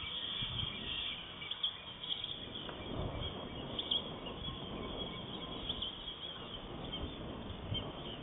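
Outdoor ambience: scattered short, high bird chirps over a steady background hiss, with irregular low rumbles.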